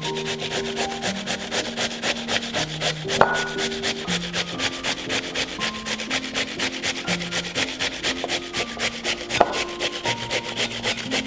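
Cucumber being grated on a stainless-steel hand grater, a steady run of quick, even rasping strokes.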